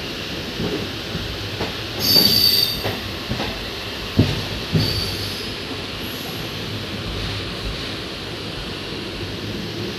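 Indian Railways passenger coach heard from inside while running: a steady rumble of wheels on rail. About two seconds in comes a brief high-pitched metallic squeal, and a couple of sharp knocks follow a little later.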